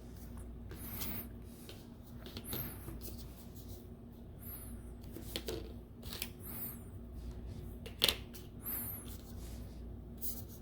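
Small clicks, scrapes and rustles of hands and a tool working inside an opened tablet around its charging-port board, with one sharp click about eight seconds in.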